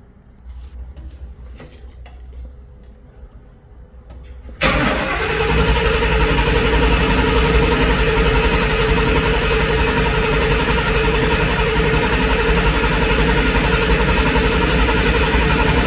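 Ford 6.2 L V8 gasoline engine being cranked over by its starter without firing for a relative compression test. It starts suddenly about four and a half seconds in and runs steadily to the end. The cranking shows even compression across the cylinders, so the misfire is not mechanical.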